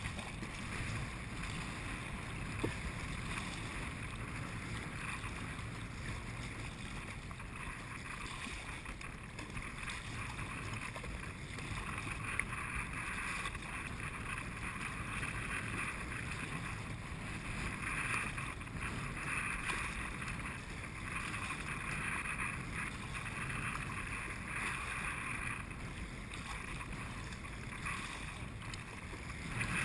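Wind-driven chop splashing and sloshing against a kayak's hull as it is paddled, with wind buffeting the microphone; a steady rushing noise that swells a little midway.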